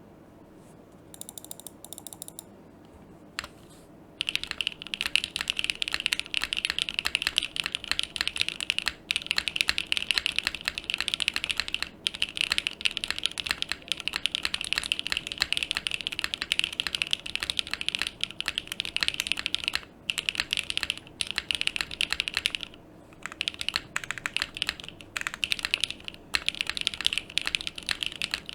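Typing on a plateless, gasket-mounted Vertex Arc 60 mechanical keyboard with stock Kailh BCP switches and GMK keycaps: a fast, continuous run of key clacks. It starts about four seconds in after a few light clicks, with a couple of brief pauses about three-quarters of the way through.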